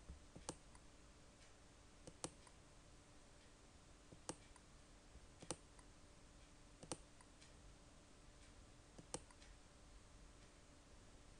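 Computer mouse button clicking about six times, irregularly spaced one to two seconds apart, over a faint steady hum.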